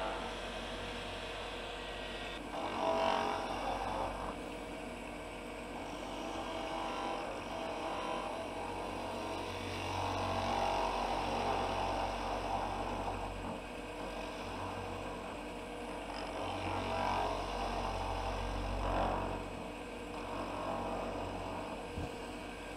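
Wood lathe motor running with a steady hum while a gouge cuts the spinning wooden spindle. A shaving, ripping cutting noise swells with each of several passes as the cone-shaped end of a lemon reamer is shaped.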